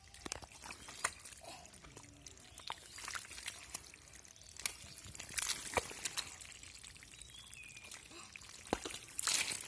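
Hands and feet working through thick wet mud: irregular squelches, sucks and small splashes, with a louder flurry of splashing near the end.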